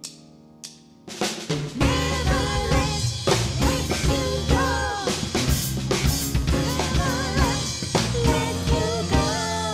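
A held chord fades with a few sharp clicks, then about a second in a live gospel band kicks in together: drum kit, electric bass and piano playing a steady groove, with melodic lines bending over the top.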